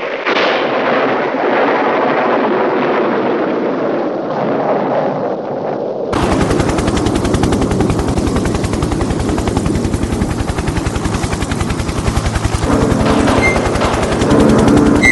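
A rushing noise for about six seconds, then a sudden switch to a helicopter's rotor chopping fast and evenly. Low steady tones join in near the end.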